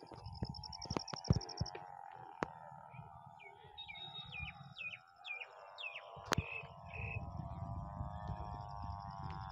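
A bird calling a quick series of short, falling chirps in the middle, over a high pulsing trill and a steady wavering drone, with wind rumbling on the microphone and a few sharp clicks of handling.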